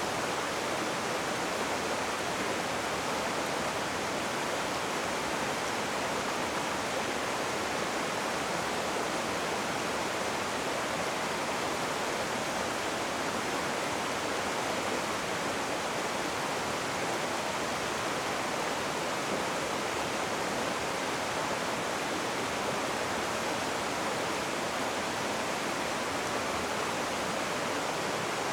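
Rushing river water: a steady, even rush with no breaks or changes.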